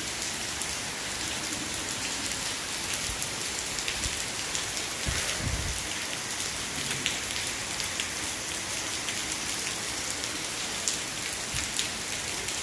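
Heavy rain falling steadily, a dense hiss full of sharp drop splatters, with one brief low thump about five seconds in.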